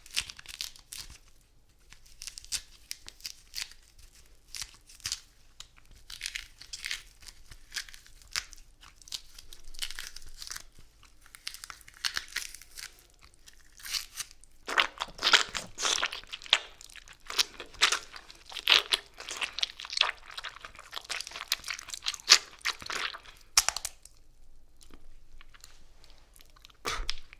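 A mandarin being torn apart and crushed up close, making a string of short, wet, crackling noises. They are sparse at first, then denser and louder from about halfway through, and die away shortly before the end.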